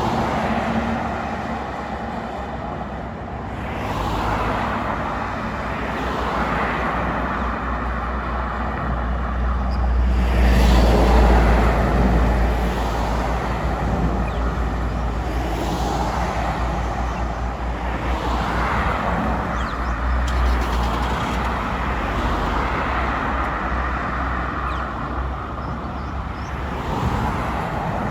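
Vehicles passing by at a road and rail crossing: a steady low rumble with several swells as each one goes past, the loudest about eleven seconds in.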